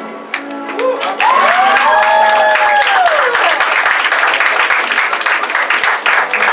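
Music stops at the start; about a second in, an audience breaks into loud clapping and cheering, with whoops that rise and fall.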